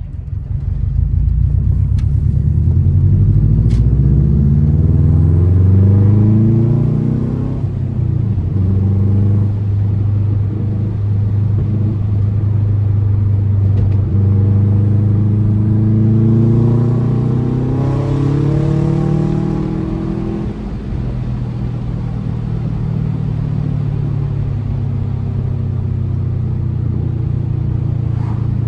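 2004 Subaru WRX's turbocharged EJ flat-four with an Invidia exhaust, rumbling as it pulls up through the revs under acceleration, then holds steady. It climbs again about two-thirds of the way through, drops back, and settles into a steady cruise.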